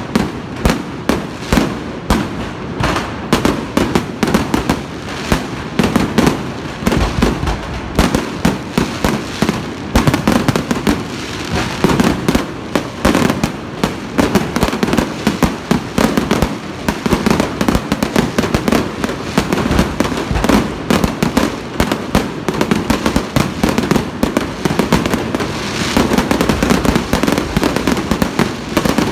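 Aerial fireworks display: shells bursting overhead in a continuous barrage, sharp bangs and crackles following one another in quick succession.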